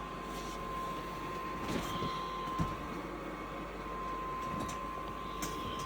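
Hcalory diesel air heater running: a steady hum with a constant high whine.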